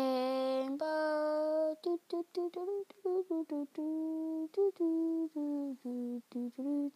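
A person humming a tune: a string of held, steady notes that step up and down in pitch, with short breaks between them and the first two notes the longest.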